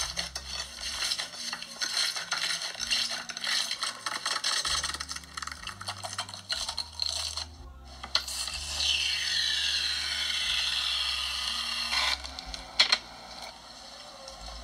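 Slime ASMR heard through a tablet's speaker. First comes dense crackling and scraping as slime is scraped off a plate. About eight seconds in, an aerosol can hisses steadily for about four seconds as it sprays foam onto the slime.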